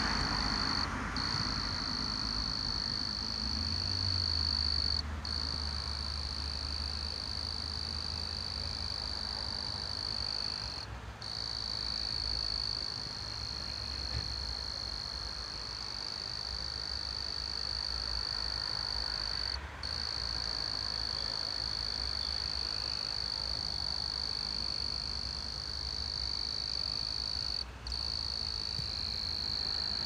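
Steady, high-pitched chorus of night-calling frogs and insects, briefly breaking off a few times, over a low hum.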